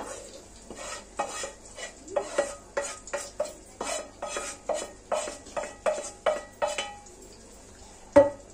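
Wooden spoon scraping and knocking fried minced meat out of a non-stick frying pan into a pot, in short strokes about two or three a second. A single sharp knock near the end.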